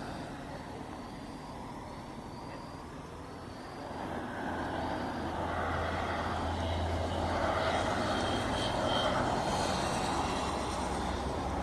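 A motor vehicle going by on the road: its engine drone and tyre noise build from about four seconds in and are loudest near the end.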